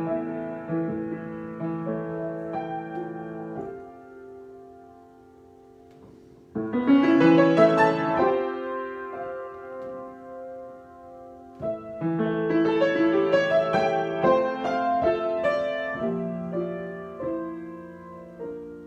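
Solo piano improvisation: sustained chords fade to a soft passage, then loud chords come in suddenly about six and a half seconds in and again around twelve seconds, each dying away slowly.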